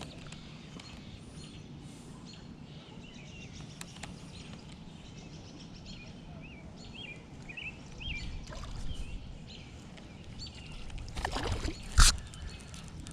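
Quiet outdoor pondside ambience with a low steady background noise and a few short bird chirps, broken by one sharp knock near the end.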